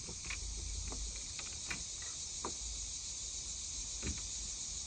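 Steady, high-pitched chorus of summer insects, with a few soft clicks and knocks of rods and tackle being handled on a boat deck.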